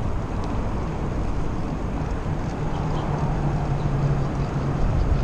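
Wind rushing over an action camera's microphone and the rumble of Trek Domane AL 2 road bike tyres rolling on pavement while cycling. A faint low steady hum comes in about a third of the way through and fades near the end.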